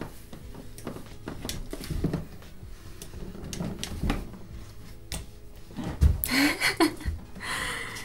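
Irregular dull thumps of footsteps and a crutch going down carpeted stairs, made by someone walking on a fractured ankle in a walker boot. About six seconds in comes a short voice sound, then a rustle.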